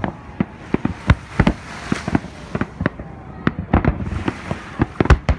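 Aerial fireworks shells bursting in quick, irregular succession: a string of sharp bangs several a second, with the loudest couple of reports near the end.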